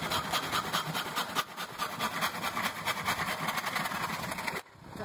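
Hand sanding or rubbing along the edge of an MDF board: a quick, even run of scratchy strokes that cuts off suddenly about four and a half seconds in.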